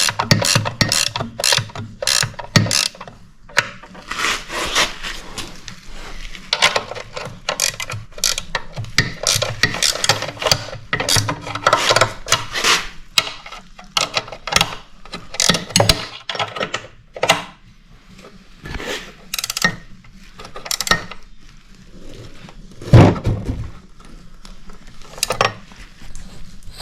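Ratchet wrench clicking in quick bursts while tightening the bolts of a snowblower's lower chain-sprocket hub, with one loud knock late on.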